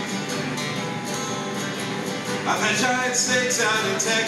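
Three acoustic guitars strummed and picked together, playing a song live.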